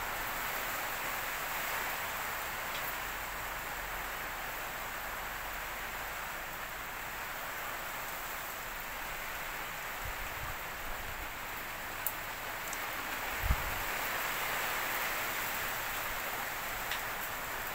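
Steady hiss of rain falling on the garden and porch roof, with a couple of brief low thumps about ten and thirteen seconds in.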